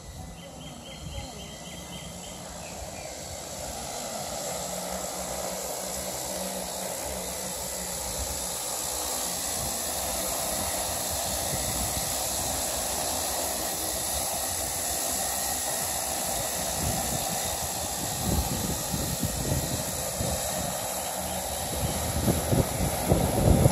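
Z Lion 10 agricultural spraying drone in flight: the steady hum of its electric rotors grows louder as it approaches and descends. In the last few seconds, as it comes down to land, gusty low rumbles from the rotor downwash buffet the microphone.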